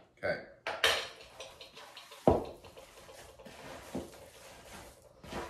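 A spoon clicking and tapping against a bowl as jerky seasoning is added, with one sharp knock a little over two seconds in, then softer sounds of hands mixing ground venison in the bowl.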